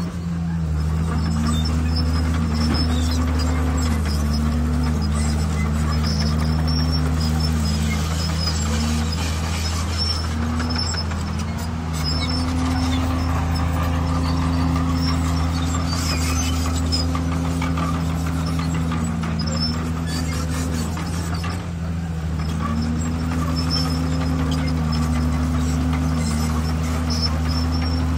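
Diesel engine of a D51PX crawler bulldozer running steadily under load while pushing stone, its pitch sagging and recovering again and again.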